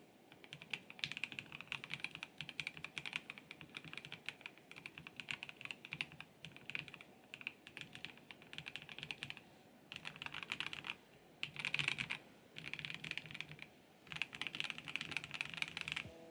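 Typing on a MelGeek Mojo84 Plastic Advance mechanical keyboard with Kailh custom box plastic switches: rapid runs of soft, clacky keystrokes in bursts, with brief pauses between them.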